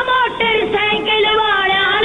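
Music: a song with one high voice singing long held notes that waver and bend in ornaments.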